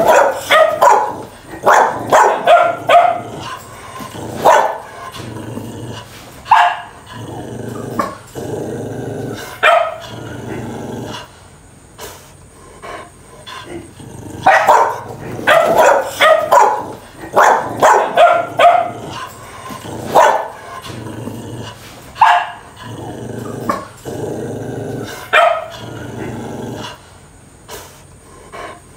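Dogs barking in clustered volleys of sharp barks, with lower growling in the gaps between volleys.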